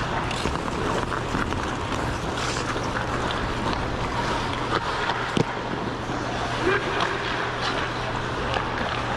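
Ice skates gliding and scraping over rink ice, a steady noisy wash with scattered small clicks, over a constant low hum and a background of voices.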